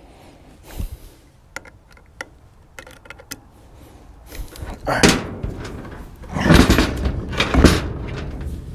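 Light scattered clicks and knocks, then from about five seconds in a run of louder clunks and rattles, as of parts or tools being handled.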